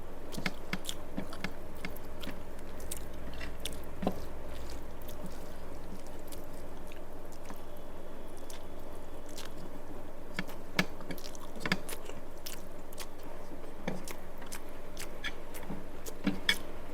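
A person chewing a mouthful of rice and curry, with scattered wet mouth clicks and small smacking sounds, over a steady low hum.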